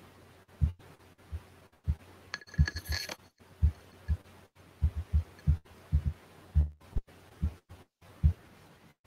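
Irregular dull low thuds, about fifteen, on a video-call audio feed that keeps dropping out for an instant. A short faint high tone sounds about two and a half seconds in.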